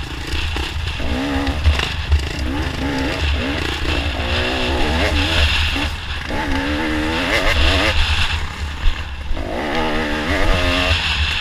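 Off-road dirt bike engine under way, its pitch rising and falling with the throttle, over heavy wind buffeting on the helmet-mounted microphone.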